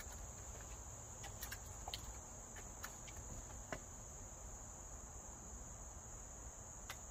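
Steady high-pitched chorus of crickets, with a few faint clicks scattered through the first four seconds and one more near the end.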